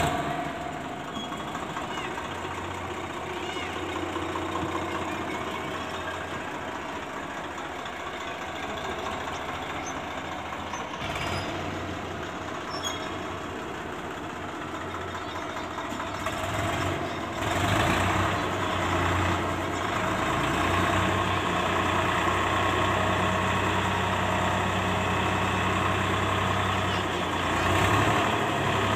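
Eicher 551 tractor's diesel engine running steadily, growing louder under more throttle a little past halfway as its hydraulics tip the trolley to unload it.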